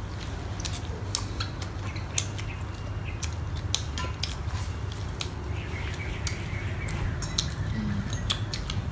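Forks and spoons clicking and scraping on plates and bowls as several people eat: irregular light clinks over a steady low hum.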